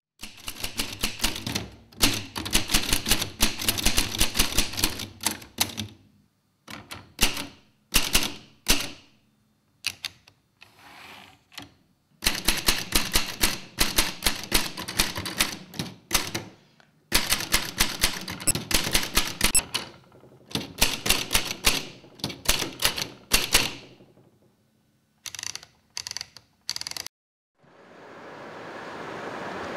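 Manual typewriter typed in quick runs of key strikes, the typebars clacking, with short pauses between runs and a few single strokes near the end. In the last two seconds a steady rushing noise fades in.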